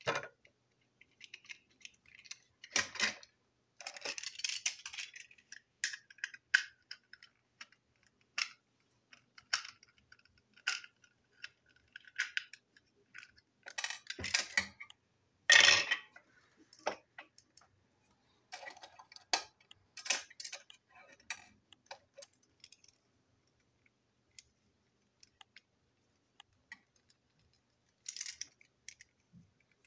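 Small screwdriver clicking and scraping against a plastic toy train truck as it is unscrewed and taken apart, with light taps and clatters of small plastic and metal parts being handled and set down on a table. The loudest single clack comes about halfway through.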